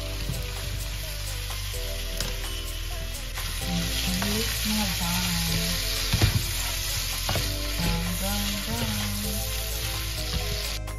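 Sliced beef sizzling as it fries in a nonstick frying pan, stirred and turned with a plastic spatula, with a sharp knock of the spatula against the pan about six seconds in. Light background music plays underneath.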